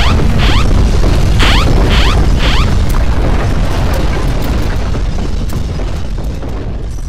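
Loud, deep earthquake rumble with scattered cracks and bangs, fading near the end. For the first three seconds or so a rising electronic alarm tone repeats about once a second over it.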